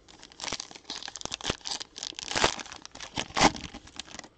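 A 2021-22 Donruss basketball card pack's plastic-foil wrapper being torn open and crinkled by hand: dense, irregular crackling.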